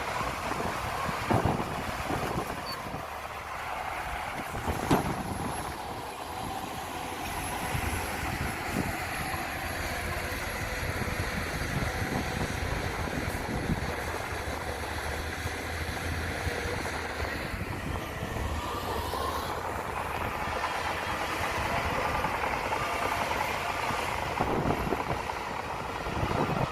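Heavy diesel earthmoving machinery running steadily under load, with a few sharp metallic clanks along the way.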